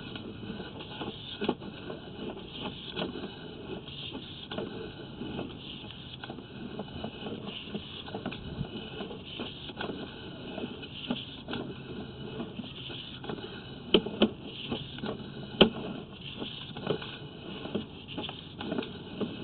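Sewer inspection camera being pulled back through a PVC sewer pipe: irregular scraping, rustling and small clicks of the push cable and camera head, with two sharper clicks about three-quarters of the way through.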